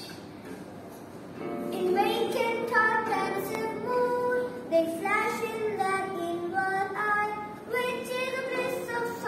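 A young boy singing a tune, with held notes and glides between them, starting about a second and a half in.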